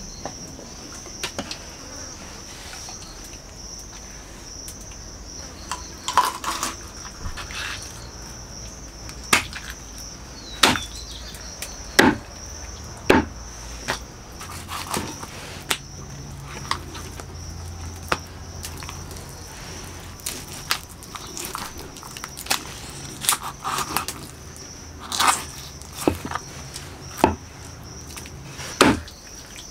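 A heavy chopping knife strikes through raw chicken into a wooden stump chopping block, in separate irregular blows about every one to two seconds from about six seconds in. Under it runs a steady high drone of insects.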